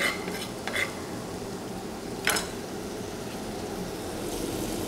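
Smoked streaky bacon sizzling steadily in a frying pan on a hot hob, with the kitchen extractor hood running. There are a few light clinks against the pan, the clearest about two seconds in.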